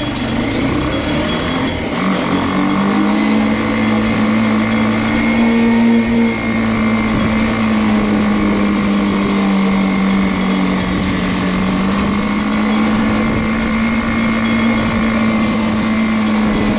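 Homemade three-wheeler's 150cc engine running under load while driving, its pitch rising about two seconds in as it picks up speed, easing off briefly around six seconds in, then holding a steady cruising pitch.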